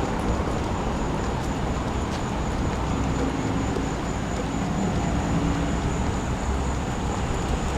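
Steady street traffic noise, with a low vehicle engine hum passing about three seconds in.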